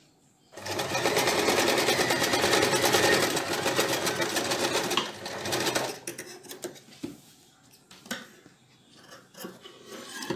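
Usha Wonder Stitch electric sewing machine running at a steady speed and stitching a seam for about five seconds, then slowing and stopping. A few light clicks follow as the work is handled at the machine.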